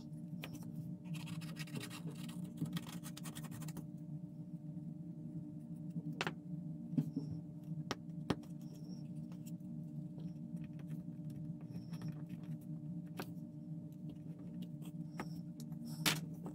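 Plastic model parts handled on a cutting mat: scratching for about three seconds starting a second in, then a few scattered light clicks and taps as pieces are set down and pressed into place, over a steady low hum.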